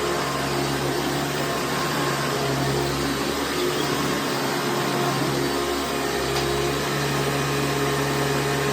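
1996 Hoover Runabout Supreme upright vacuum cleaner running steadily on carpet, its motor humming under a broad rushing noise. The owner says the motor sounds dry and needs its bearings oiled or replaced.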